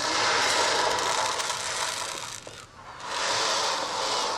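Wave-sound instrument of the ocean-drum kind being tilted so its beads roll and rush across it, giving two long surf-like swells, the second starting about three seconds in.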